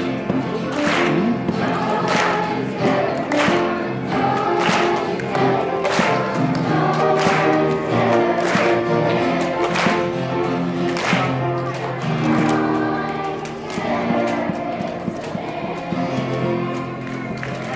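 Children's choir singing a song, with sharp claps on the beat about every second and a quarter.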